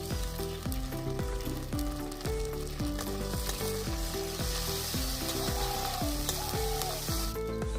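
Ginger-garlic paste and fried onions sizzling in hot mustard oil in a kadai. The sizzle is loudest from a few seconds in until just before the end, over background music.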